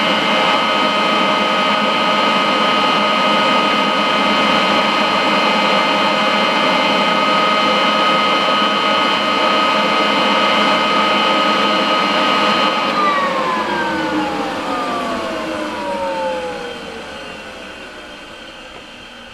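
Kirby vacuum cleaner's motor running steadily with a high whine. About two-thirds of the way in the motor stops being driven, and its whine falls steadily in pitch and fades as it spins down.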